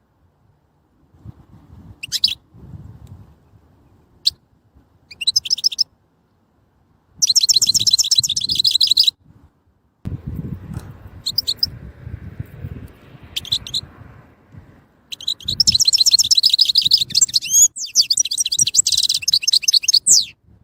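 European goldfinch singing: a few short high twittering calls, then fast trilled phrases of song, the longest running over the last five seconds or so. A faint low rumble sits underneath in places.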